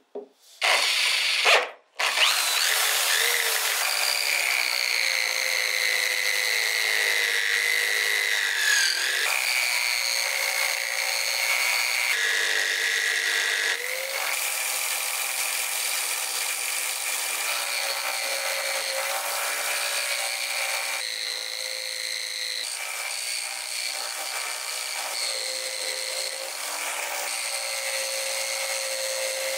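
A few short knocks, then about two seconds in an electric drill starts and runs steadily, spinning a wooden wheel held in its chuck as a makeshift lathe while the wood is cut and then sanded. The motor's whine dips briefly in pitch under load.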